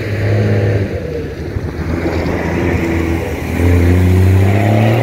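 An engine running close by, its pitch shifting up and down.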